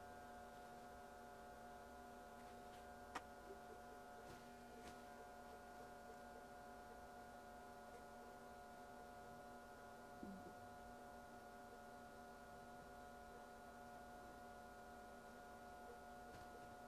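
Near silence with a faint, steady electrical mains hum; one faint click about three seconds in.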